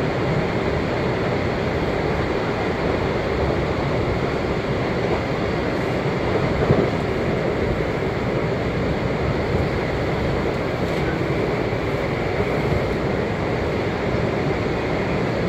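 Steady rumble of wheels on rail inside a Washington Metro 7000-series railcar running at speed, with a single light bump a little before halfway.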